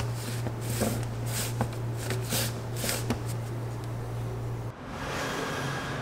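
Gloved hands pressing the plastic engine cover of an Infiniti Q50 back onto its mounts: a string of short soft scuffs and knocks over a steady low hum. Near the end the hum stops and a steady hiss takes over.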